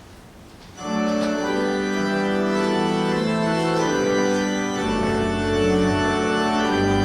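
Church organ starts playing sustained chords about a second in, as offertory music; deep pedal bass notes join about five seconds in.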